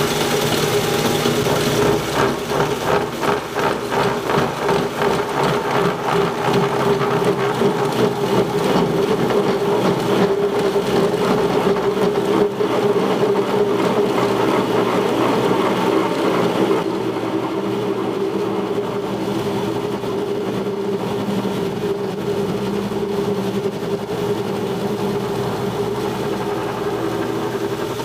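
An old milling machine running, its dull scissor-serration form cutter taking a pass across scrap steel with a rough, rhythmic chattering cut. About 17 seconds in, the chatter stops and the machine runs on steadily, cutting no more.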